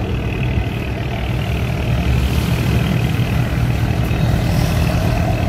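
Diesel engines of cargo barges running at low speed as the barges slowly squeeze past one another: a steady low drone.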